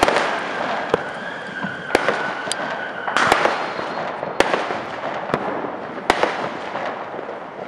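Fireworks going off: sharp bangs roughly once a second over a continuous crackling hiss, with a steady whistle for about two seconds near the start.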